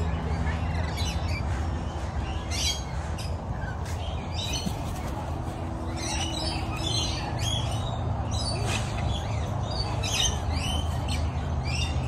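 Aviary birds chirping and squawking in short high calls about every second, over a steady low hum.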